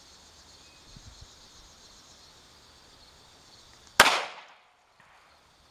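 A single .45 ACP shot from a DoubleTap two-barrel pocket pistol about four seconds in: one sharp, loud crack with a short ringing tail, fired with 185-grain flat-nose ammunition.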